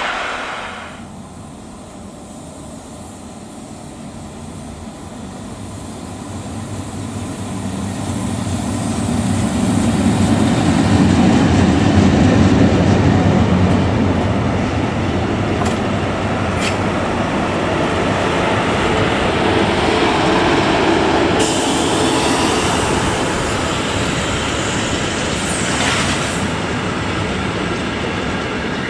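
Freight train passing: a DB class 143 electric locomotive and a long rake of car-carrier wagons rolling by. The rumble grows louder over the first ten seconds or so, then holds steady as the wagons pass, with a few sharp clicks from the wheels and rails.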